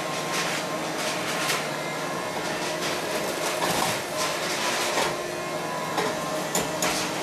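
Volvo high-reach demolition excavator running steadily with a low, even hum while it slews, with short scrapes and clanks every second or so.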